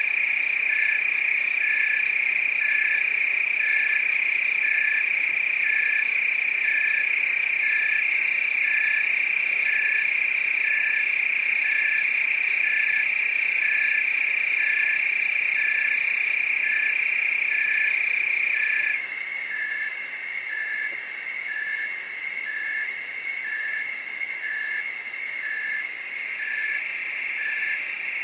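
Night chorus of crickets and frogs: a loud, steady high-pitched trill over a regular pulsing call about twice a second. About two-thirds of the way through the steady trill drops away and the chorus becomes quieter, the pulsing call going on.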